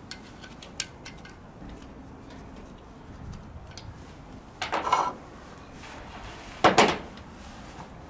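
Red-handled snips working at the terminal box of an air-conditioner scroll compressor. A few light metallic clicks come first, then two short scraping clatters about halfway through and near the end.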